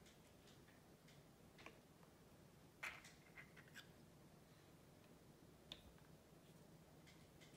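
Faint, sharp clicks of eggshell halves touching as an egg yolk is tipped back and forth between them to separate the white, a handful of ticks with the loudest about three seconds in, over a low steady hum of room tone.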